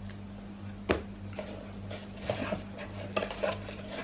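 Hands handling a camera's cardboard box and paper inserts: a sharp click about a second in, then light taps and rustles, over a steady low hum.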